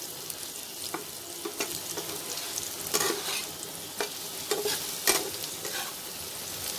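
Diced potatoes sizzling steadily in a little oil in a non-stick pan, stirred and turned over with a spatula that scrapes the pan in short strokes every second or so.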